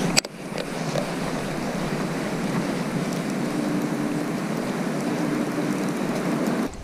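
Steady rush of wind over the microphone, with a sharp click just after the start and a faint low hum twice in the middle.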